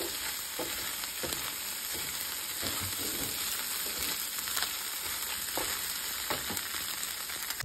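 Shrimp and chopped vegetables sizzling in a hot frying pan, with a wooden spatula scraping and knocking against the pan at irregular moments as the food is stirred.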